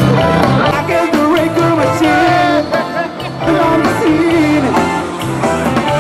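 A song with a sung melody over a bass line and backing instruments.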